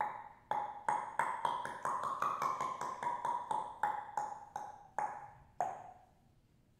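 Body percussion: a rapid series of knocks from a hand and fist striking the player's own head and face. Each knock rings briefly at a clear pitch, which rises a little mid-run and falls back. The knocks space out toward the end.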